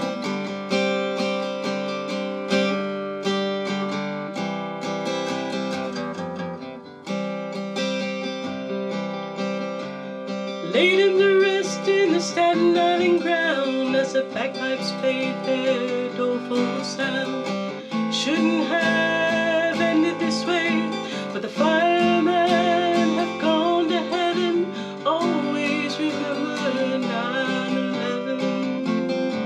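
Acoustic guitar strummed and picked in a slow song accompaniment. About eleven seconds in, a wavering, sliding melody line without clear words joins over the guitar.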